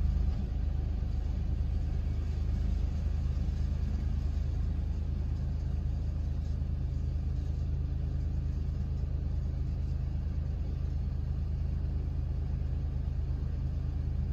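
Car engine idling steadily, a low even hum heard from inside the cabin.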